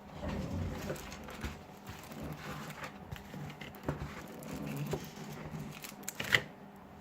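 Small plastic clicks and scraping as a smartphone's plastic back cover is pried loose, with one sharp click a little after six seconds in.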